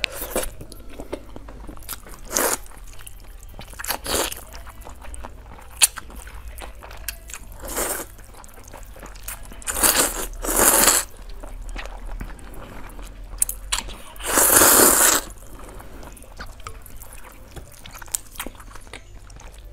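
A person slurping noodles and chewing: several loud slurps, two close together about ten seconds in and the longest, about a second, a few seconds later, with quieter chewing and mouth clicks between.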